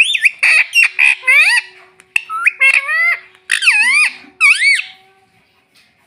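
Indian ringneck parrot giving a rapid run of loud, high-pitched calls that swoop up and down in pitch, stopping about five seconds in.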